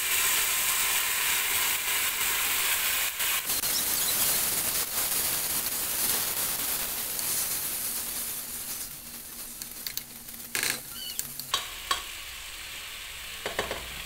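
Freshly washed, still-wet rice sizzling in hot coconut oil in a pot as it is stirred with a wooden spoon. The hiss is loudest at first and dies down after about eight seconds, with a few sharp knocks of the spoon near the end.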